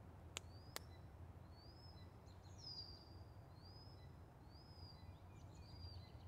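Near silence with a faint bird repeating a short whistled note, rising then levelling off, about once a second. Two sharp clicks sound within the first second.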